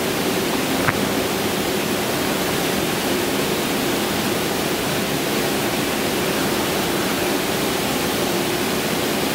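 Loud, steady hiss with no pitch or rhythm. A faint click about a second in.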